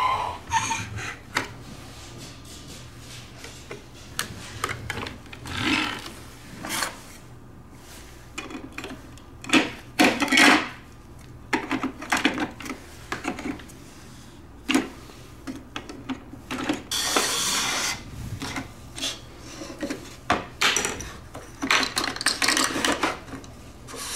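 Plastic LEGO bricks being handled and fitted together, giving irregular clicks and rattles, with a longer rustle about two-thirds of the way through.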